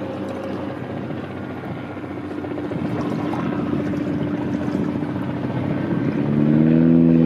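Propeller engine of a single-engine floatplane droning steadily as the plane comes in low to land on the water, the engine note growing louder near the end.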